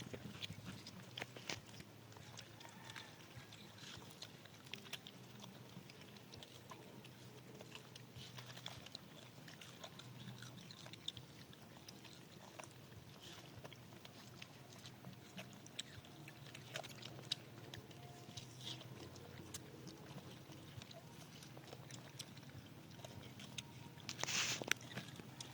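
Monkeys eating watermelon: faint, irregular wet clicks and smacks of biting and chewing. There is a brief louder noise near the end.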